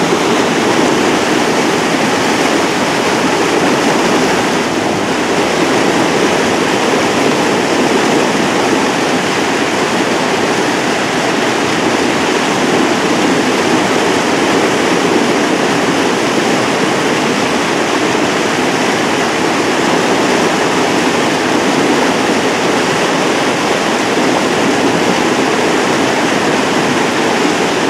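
River in flood pouring over a low mill dam: a loud, steady rush of water that does not change.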